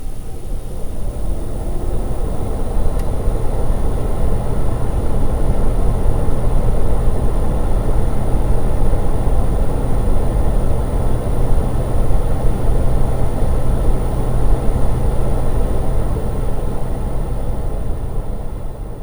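The fan of a household air-handling appliance, an air conditioner or air purifier, running steadily: an even rushing with a low hum underneath and a faint steady high whine. It swells slightly over the first few seconds and fades down near the end.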